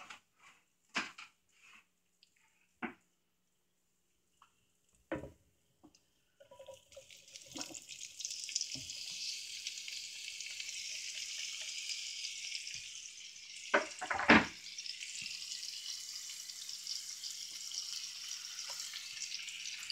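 Chopped onions and green bell peppers sizzling in hot oil in a cast iron skillet, a steady hiss that starts about a third of the way in after a few scattered clicks and knocks. Two louder knocks come near the middle.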